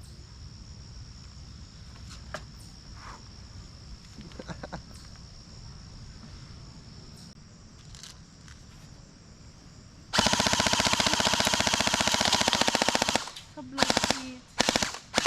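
Valken ASL+ Foxtrot45 airsoft electric rifle (AEG) firing a rapid full-auto burst of BBs for about three seconds, starting about ten seconds in, followed by a few short bursts near the end.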